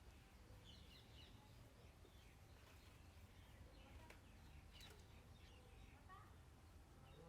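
Faint birds chirping now and then over a low steady background rumble, with a faint click about five seconds in.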